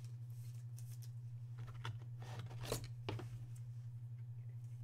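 Plastic rustling and scraping as a trading card is slid into a soft plastic penny sleeve and then into a rigid plastic top loader. There is a short cluster of scrapes a couple of seconds in, over a steady low hum.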